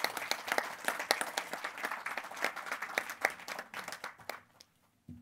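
Audience applauding, many people clapping at once; the applause thins and dies away after about four and a half seconds.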